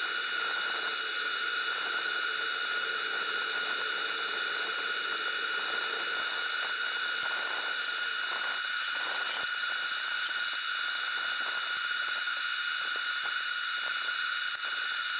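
Workshop machinery running with a steady high whine over a hiss. A lower hum drops out about halfway through, and faint scraping ticks follow.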